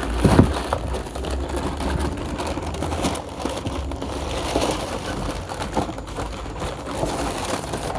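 Crinkling and rustling of tissue paper wrapping inside a cardboard shoebox as it is folded back and the shoes are handled.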